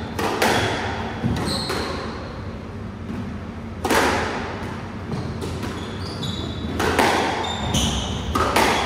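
A squash rally: the ball is smacked by the rackets and off the court walls every second or two, each strike echoing in the enclosed court. Short high squeaks come from the players' shoes on the wooden floor between the strikes.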